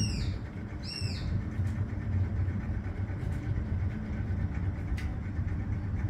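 Steady low background rumble, with two short high chirps about a second apart near the start and a faint click later.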